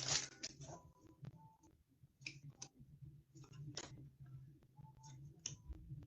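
Trading cards being handled, with a foil pack wrapper crinkling at the start, then scattered soft clicks and snaps of card against card over a steady low hum.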